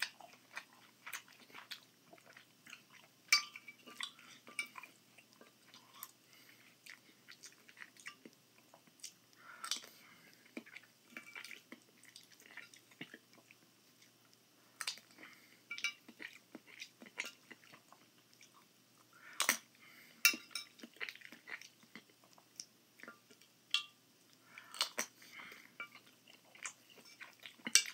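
A person chewing a forkful of scrambled eggs and ramen noodles, with sharp clicks now and then of a metal fork against a glass baking dish; the loudest clicks come a few seconds in and twice close together about two-thirds of the way through.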